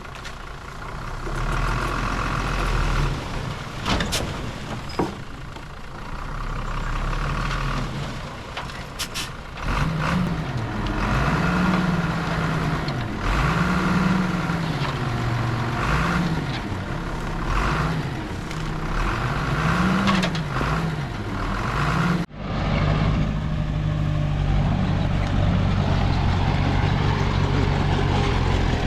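Diesel engines of heavy earthmoving machinery working. About ten seconds in, one engine's pitch begins rising and falling repeatedly as it is loaded and eased off, with scattered clanks. After a sudden break about 22 seconds in, an engine runs steadily.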